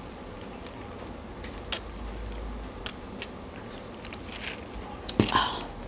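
Drinking soda over ice from a plastic cup: a few small clicks and swallows, then a thump with a brief rattle of ice about five seconds in.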